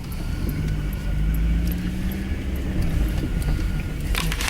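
Truck engine running, heard from inside the cab as a steady low rumble with a faint hum, and a short hiss near the end.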